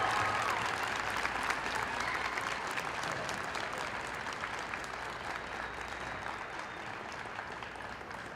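Small audience clapping in an ice arena, individual claps audible, the applause fading away gradually.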